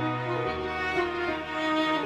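Slow instrumental closing music, long held notes over a sustained low bass note.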